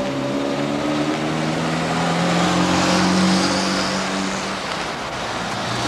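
A motor vehicle's engine running as it passes close by on a street, growing louder to a peak about halfway through and then fading.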